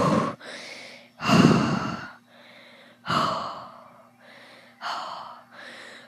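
A man blowing out hard breaths close to the microphone, a puff about every one and a half to two seconds, each one weaker than the last.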